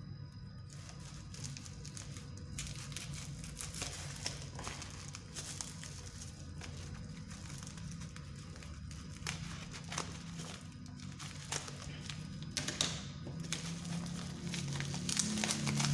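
Packaging being unwrapped by hand: irregular crinkling and rustling as the wrapping is pulled open, over faint background music.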